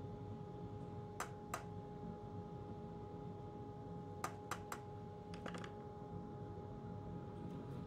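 Sharp metallic clicks of a screwdriver shaft tapping the rim of a small ladle of lead as the lead is stirred. There are two clicks about a second in, a quick run of three around four seconds, and a few fainter ones just after, over a steady low hum.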